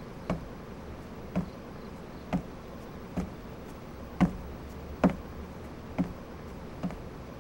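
Slow footsteps on a hard floor, about one step a second, over a low steady room hum.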